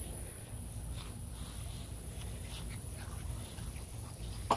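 Insects singing in a steady high-pitched drone, with soft footsteps through dry grass and one short, loud dog bark near the end.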